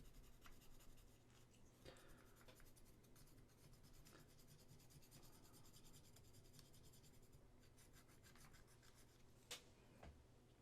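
Near silence, with faint rubbing and a few light taps from small resin model parts being handled; the clearest tap comes near the end.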